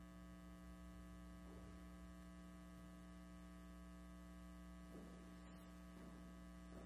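Near silence with a steady low hum.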